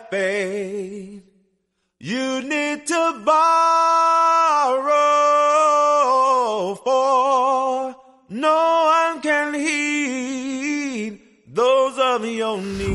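Music: a solo voice singing unaccompanied, holding long notes with vibrato in phrases broken by short silences. A brief low thud comes just before the end.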